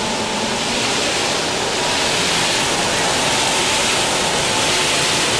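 Steady rushing air noise from air-conditioning and snow-making blowers, with a faint high tone held through it.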